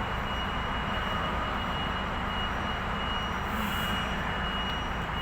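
Steady rumble of a running engine, even throughout, with a thin steady high whine over it.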